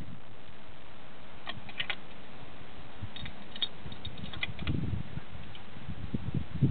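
Sharp metallic clicks of a .375 CheyTac bolt-action rifle's bolt being worked to eject the spent case and chamber the next round, in two short clusters, followed by low thumps near the end.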